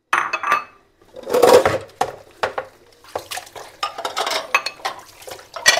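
Dishes being washed by hand at a kitchen sink: plates, bowls and cutlery clinking and knocking together in irregular strokes, loudest in a longer clatter about a second and a half in.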